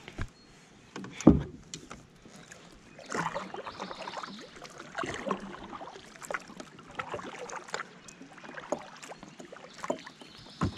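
Kayak paddle strokes, the blades swishing and splashing through the water about every one to two seconds. A single loud knock on the kayak comes about a second in.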